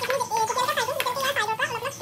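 A high-pitched, warbling voice-like sound that rises and falls, over the clicks and scrapes of a metal spoon stirring thick masala in a steel kadai.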